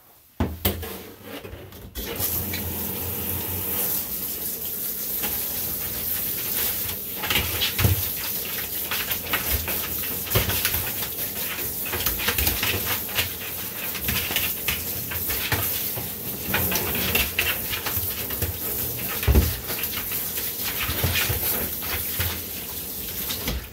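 Water running into a grooming tub while a dog is bathed: a steady rush that starts about two seconds in and keeps on, with a few sharper knocks scattered through it.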